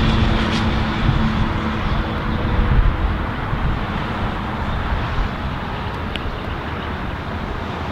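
Steady low outdoor rumble, like distant traffic or engine noise, with a humming tone that fades out about three seconds in; a single faint tick comes past the middle.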